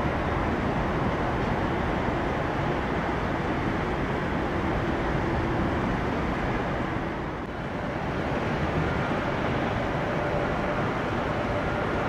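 Steady roar of jet airliner engines, with a slight dip about seven seconds in and a faint whine near the end.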